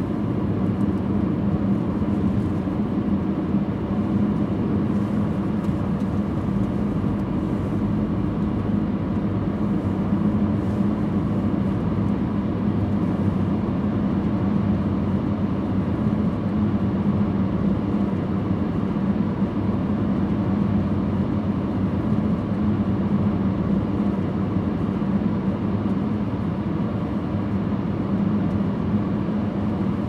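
Car driving at steady speed: an even drone of tyre, road and engine noise with a steady low hum.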